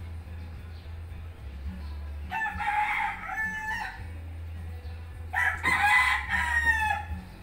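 Two long calls with stepping pitch, each about a second and a half, the second one louder, over a steady low hum.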